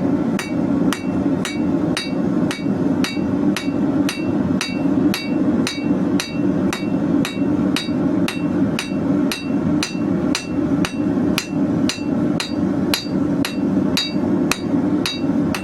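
Hand hammer forging a hot 16 mm square steel bar: a long, even run of blows, about three a second, each with a short metallic ring, over a steady low drone.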